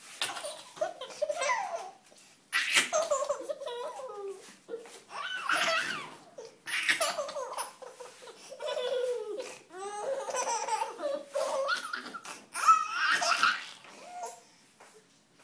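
A baby laughing while being tickled, in several long bouts of belly laughter with short breaks between them.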